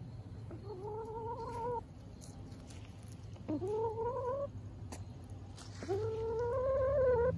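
Domestic hen giving three drawn-out, whining calls, each rising at the start and then held for about a second, the last and loudest near the end.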